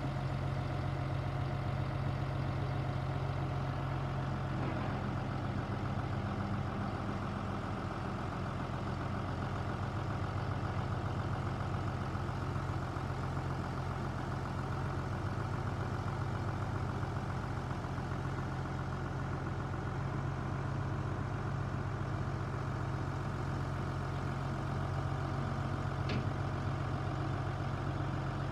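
New Holland T6050 tractor's diesel engine running at a steady speed while its front loader is raised and lowered.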